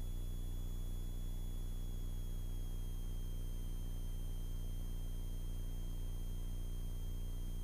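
Cirrus SF50 Vision Jet's single turbofan engine at idle during taxi, heard as a steady low hum with faint high whines. One whine dips slightly in pitch about two and a half seconds in.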